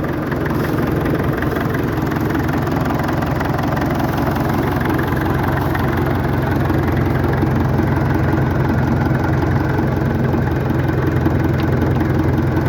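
International BTD6 crawler tractor's BD-264 four-cylinder diesel engine idling steadily.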